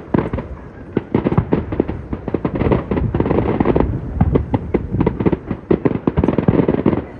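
Aerial fireworks going off in quick succession, a dense run of sharp cracks and bangs, many overlapping, with no gap longer than a moment.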